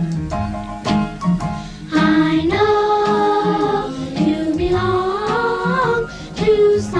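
Background music: short repeated chords, then from about two seconds in a singing voice holds long, gliding notes over the accompaniment.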